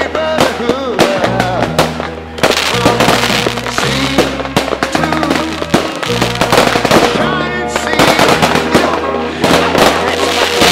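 Fireworks going off in rapid bangs and crackles over a music track with held bass notes.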